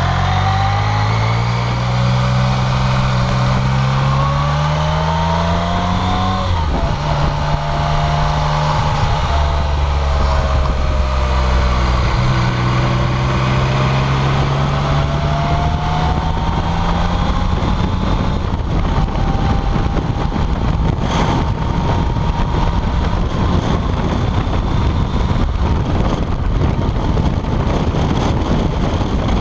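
BMW K75RT motorcycle's three-cylinder engine pulling hard under acceleration, its pitch rising and dropping sharply at gear changes about six and twelve seconds in. From about halfway on, steady wind noise on the microphone at road speed drowns out most of the engine.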